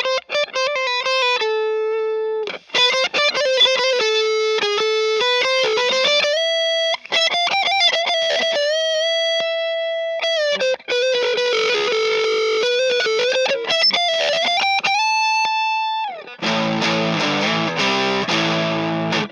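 Electric guitar through the BoosTron 3 pedal playing a clean single-note melody with long sustained notes and bends, while the pedal's Squeezer compressor is switched off and on. About three seconds from the end, a heavily distorted, dense sound cuts in.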